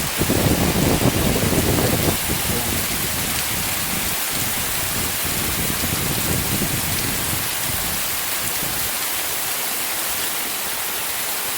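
Heavy rain pouring down in a dense, steady hiss. A low rumble of wind gusts is strong in the first couple of seconds and eases off in the second half.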